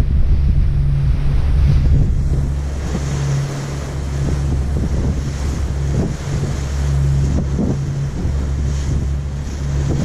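Wind buffeting the microphone over the steady low drone of a ferry's engines and the rush of sea water past the moving hull.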